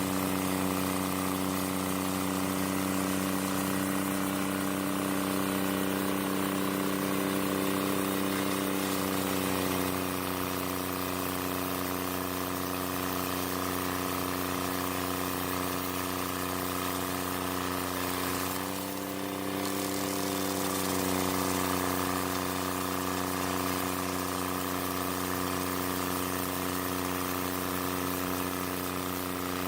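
Carlton 7015 stump grinder's engine running steadily while grinding, its pitch dipping briefly about two-thirds of the way through and then picking back up.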